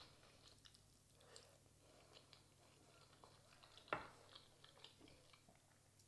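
Quiet chewing of a soft chocolate crepe, with small wet mouth clicks. About four seconds in comes a single sharp clink as a metal fork is set down on the wooden table.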